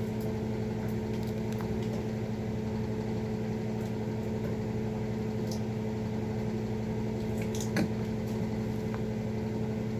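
A steady electrical hum from a small motor or fan, running evenly, with a light click about eight seconds in.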